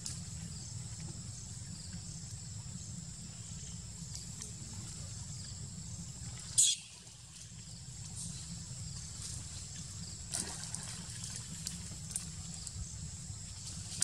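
Light trickling and sloshing of shallow muddy water as a young monkey moves about in it. A single brief, sharp, loud sound about six and a half seconds in, and a few small clicks later on.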